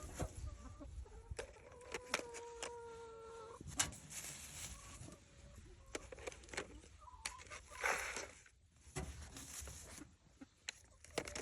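Domestic hens clucking, with a long drawn-out call about two seconds in, amid scattered clicks and knocks of handling in the coop.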